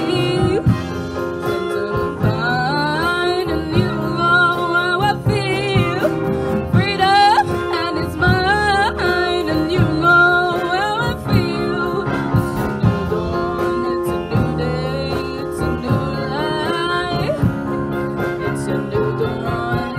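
A teenage girl singing a slow melody with vibrato into a microphone, amplified through PA speakers, over held chords from a small school band.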